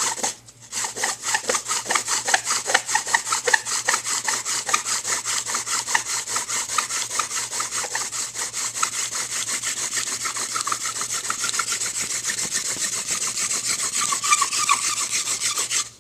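Tandem hand-drill fire-making: a wooden spindle is spun rapidly back and forth between the palms, rubbing and squeaking in the fireboard socket in a fast, even rhythm. It pauses briefly just after the start, then runs on and stops abruptly at the end.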